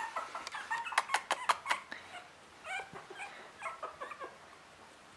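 Three-week-old Russian Toy puppies squeaking and whimpering in short, high calls, with a run of sharp clicks about a second in.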